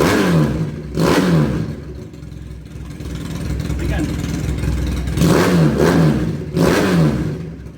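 Keeway Patagonian Eagle 250's V-twin engine through a custom trumpet exhaust, blipped sharply on the throttle and falling back to idle each time: two quick revs at the start, a steady idle in the middle, then two more revs near the end.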